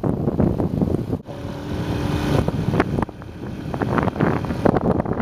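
Wind buffeting the microphone of a rider on a moving motorbike, with the motorbike's engine running underneath.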